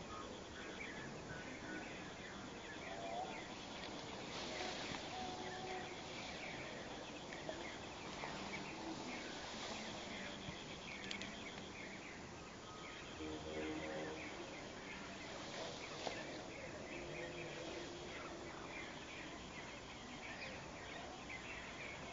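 Garden ambience of many birds chirping continuously over a steady high insect trill.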